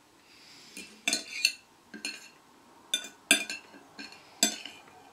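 Fork and spoon clinking and scraping against a plate while eating: a string of sharp metallic clinks, about two a second.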